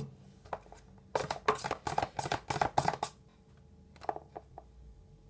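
Spoon mixing sticky glue-and-shaving-foam slime in a bowl: a quick run of clicks, taps and squelches for about two seconds, then a few scattered taps.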